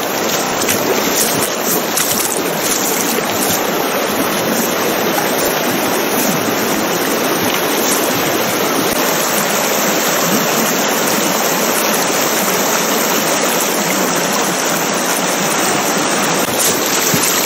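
Shallow mountain creek rushing steadily over cobbles and gravel.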